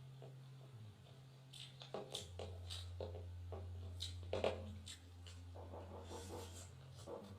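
Close-miked eating sounds of a person chewing roast chicken and rice: irregular small clicks and crackles of mouth and food, over a steady low hum.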